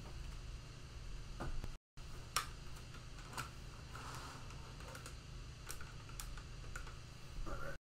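Scattered light clicks and taps, a few each second, over a low steady hum. The audio cuts out briefly twice, about two seconds in and near the end.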